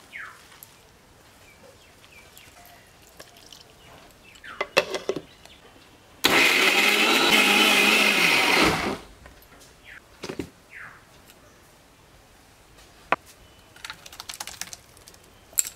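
Electric mixer grinder running in one burst of about two and a half seconds, grinding steamed spinach and coriander leaves into a paste, then winding down. A few knocks and clinks of the steel jar come before and after.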